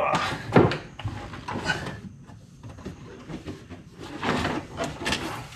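Several short bursts of scraping and rubbing, as of a body shifting against trim and carpet while working in a cramped space.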